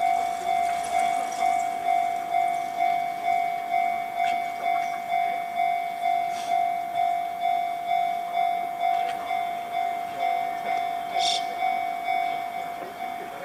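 Japanese level crossing alarm ringing its repeated electronic 'kan-kan' tone, about two strikes a second, easing slightly in level near the end.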